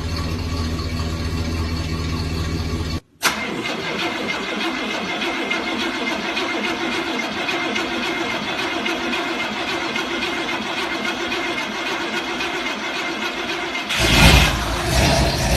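Car engine idling with a deep, even rumble that cuts off abruptly about three seconds in. A thinner, steady mechanical noise with little bass follows. About fourteen seconds in, an engine fires up with a loud burst and settles into a deep rumbling idle.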